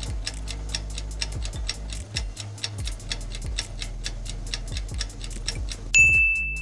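Quiz countdown-timer sound effect: a clock ticking steadily about four times a second. About six seconds in, a short high beep sounds as the time runs out.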